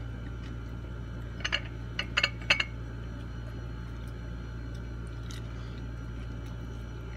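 A few short, crisp crackles of breaded, fried food about one and a half to two and a half seconds in, over a steady low hum.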